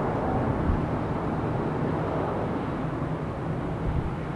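McDonnell Douglas MD-11F freighter's three jet engines at climb power just after takeoff: a deep, steady rumble fading slowly as the aircraft climbs away.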